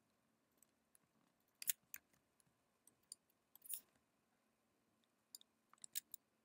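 Near silence with a few faint, scattered computer mouse clicks and a brief rustle about halfway through, as an object is dragged and resized on screen.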